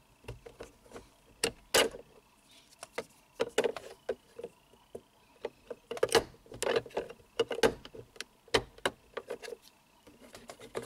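Plastic trim tool prying a clip-in map-light lens cover out of a 2004 Honda Accord's overhead console: a steady run of sharp plastic clicks, taps and scrapes as the tool works around the lens and its tabs.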